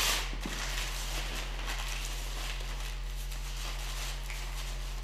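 Strips of handmade Korean paper rustling and rubbing as they are twisted between the fingers into cord (jiseung), over a steady low hum.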